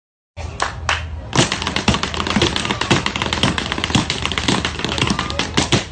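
Tap shoes striking a hard floor in a tap dance duet: a couple of single taps, then from about a second and a half in a fast, dense run of sharp metal-tap clicks.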